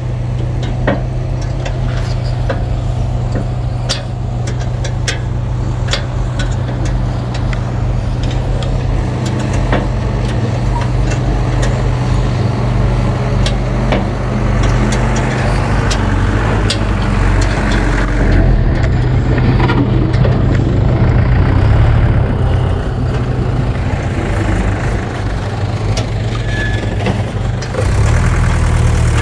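Road roller's diesel engine idling steadily, running a little harder through the middle stretch. Sharp metallic clicks and taps sound at the engine bay in the first few seconds.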